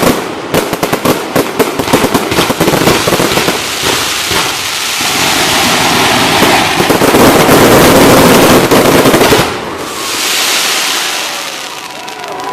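Fireworks finale barrage: a rapid, dense run of bangs and cracks that thickens into continuous crackling. It cuts off about nine and a half seconds in, leaving a lower wash of noise as the crowd begins to cheer.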